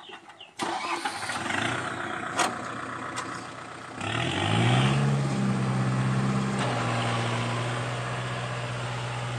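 Kubota tractor's diesel engine running while pulling a cultivator through soil. About four seconds in it revs up and then holds a steady speed.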